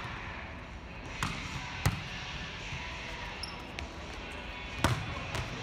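A volleyball being set and spiked in hitting practice: about four sharp slaps of hands on the ball and the ball hitting the hardwood court, the loudest about two seconds in.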